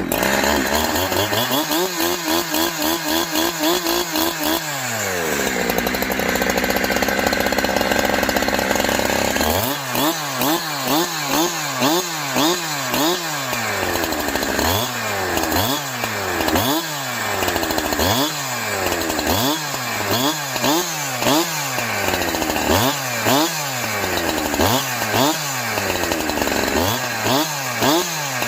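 Farmertec Holzfforma G372XP two-stroke chainsaw running at high revs, then having its throttle blipped over and over, the engine revving up and dropping back a little more than once a second.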